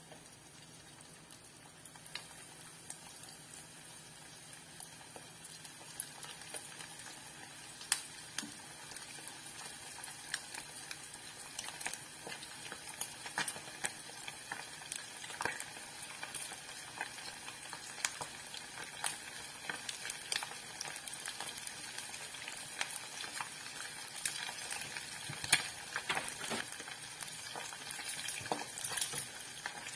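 Breaded chicken skin deep-frying in hot oil in a saucepan: a steady sizzle with frequent sharp crackles and pops. It grows louder as more pieces are added to the oil.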